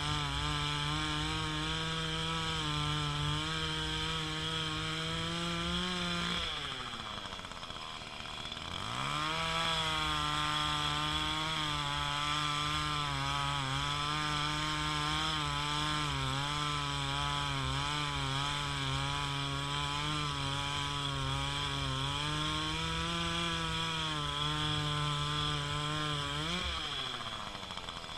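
Chainsaw running at high revs, bucking a felled tree trunk into log rounds, its pitch wavering under the load of the cut. About six seconds in it drops back toward idle, then revs up again a couple of seconds later and keeps cutting. Near the end it rises briefly, drops off and picks up again.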